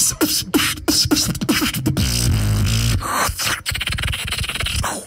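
Solo human beatboxing into a handheld microphone: a deep bass line under sharp click and snare sounds, with short falling pitched tones, one rapid run of vocal percussion.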